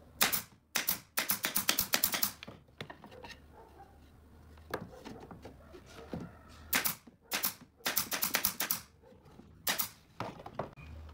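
Pneumatic nail gun firing nails into pine pallet boards in quick strings of sharp shots, a run of several near the start, a single one in the middle, then further runs, about a dozen shots in all, as the back panel is nailed to the base.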